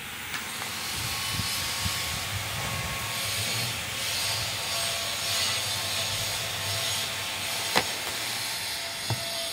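A knife blade scraping and sawing along the sealed top of a cardboard earbuds box, cutting its plastic wrap: a steady scraping noise that swells and eases, with one sharp click near the end.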